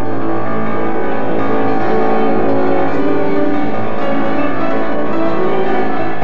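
Orchestra playing, with brass and strings sounding long held chords.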